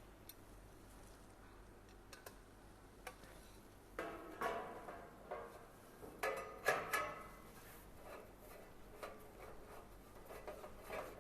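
Small clicks and short metallic clinks and scrapes as a Phillips screwdriver drives screws into a galvanised steel flap on a steel chicken feeder hopper. A cluster of louder clinks comes about four to seven seconds in.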